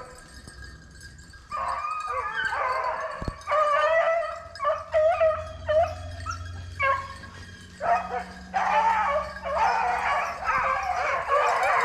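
A pack of rabbit-hunting hounds baying and howling together in full cry on a rabbit's trail, starting about a second and a half in, with brief gaps.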